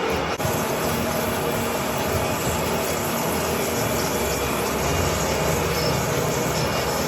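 Manual metal lathe running and cutting steel: a steady, loud machine din with a grinding hiss and rumble, briefly broken about half a second in.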